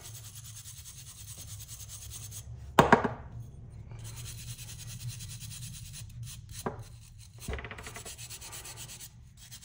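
Fast rubbing strokes of hand-scrubbing rust off a steel hand-plane blade, broken by a loud knock about three seconds in.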